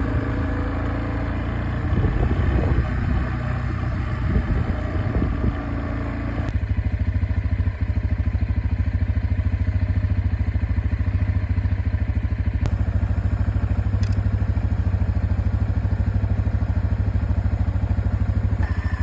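Four-wheeler (ATV) engine running, with clattering and knocks over the first few seconds. About six seconds in the sound changes to a steady, fast, even pulsing that holds to the end.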